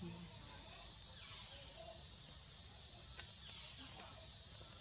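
Faint outdoor ambience: a steady high-pitched hiss over a low rumble, with a single light click about three seconds in.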